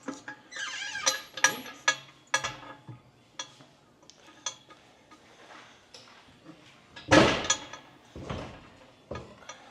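Scattered metallic clinks, knocks and creaks as an engine is worked loose and lifted out of the car with a jack and engine crane, with one much louder metallic noise about seven seconds in.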